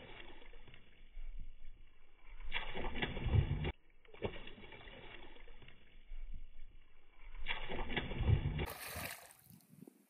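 A hooked piabanha splashing and thrashing at the water's surface as it leaps on the line. The sound is dull, with no high end, and the same splash passage is heard twice.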